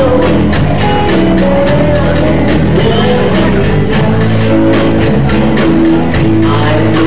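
Live Indorock band playing: electric guitars over a steady drum beat.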